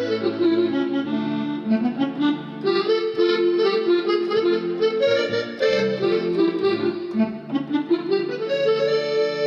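Yamaha PSR-E463 keyboard playing a loaded Korg X5D musette accordion sample: a melody over held lower notes.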